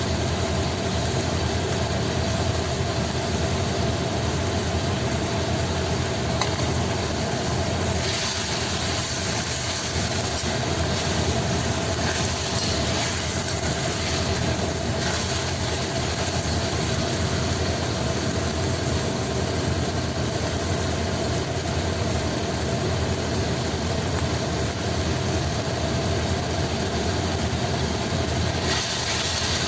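Steady kitchen noise from wok cooking: a constant machine-like hum with a dense hiss over it, going on without a break.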